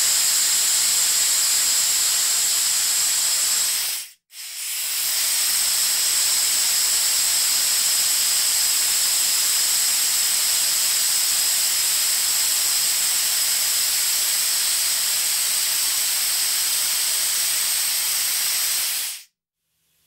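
Compressed air hissing out in a steady, high-pitched jet. It cuts off about four seconds in, starts again a moment later, and runs on until it stops abruptly near the end.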